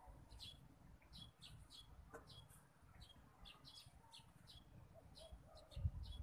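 Faint, short bird chirps repeated two or three times a second, with a brief low rumble near the end.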